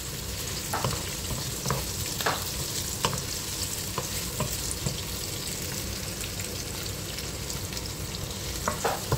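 Diced pork and chopped onions sizzling in oil in a nonstick frying pan, stirred with a wooden spoon that scrapes and knocks against the pan every so often.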